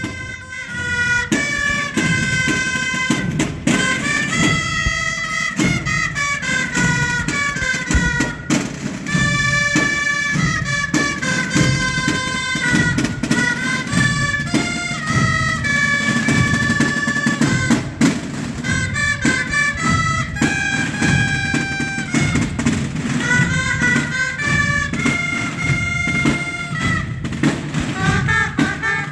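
A band of high wind instruments and drums playing: held melody notes ring out over continuous drumming.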